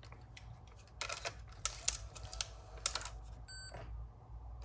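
Small sharp plastic clicks and taps from handling an opened Aiwa HS-PL777 cassette walkman and plugging a cable into it, with a brief short tone a little after three and a half seconds. A steady low hum runs underneath.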